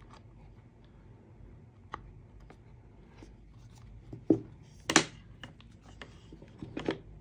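Objects being handled by hand: scattered short clicks and knocks, the loudest a pair about four and five seconds in, with a few smaller taps near the end.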